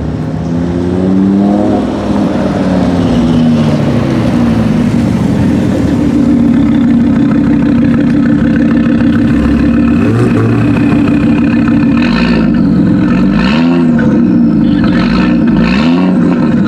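Audi RS3's turbocharged five-cylinder engine revving through a Milltek exhaust. The revs rise and fall in the first few seconds, hold steady at a high pitch for several seconds, and then come as a few quick blips near the end.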